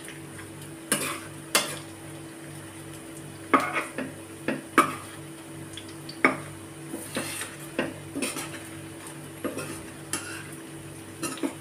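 A spoon scraping and clinking irregularly against a kadhai (wok) as kofta balls are turned while they shallow-fry, with a faint sizzle of oil underneath.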